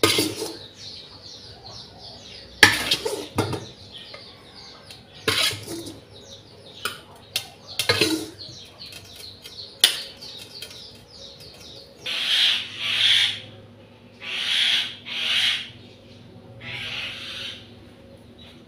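Metal spoon clinking against a metal mixing bowl and a plate as sticky dumplings are scooped across: a few sharp clinks spread over the first ten seconds, then a run of short scraping rasps in pairs later on. Birds chirp faintly in the background.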